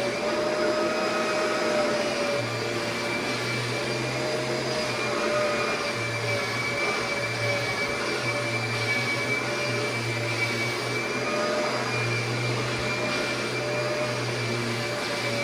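Kirby vacuum cleaner running steadily as it vacuums a mattress, its motor giving a constant whine over a low hum that swells and drops every few seconds.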